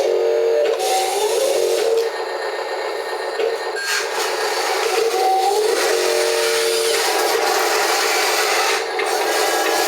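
Wheel loader working, its engine revving up and down in short rises of pitch over a steady hiss.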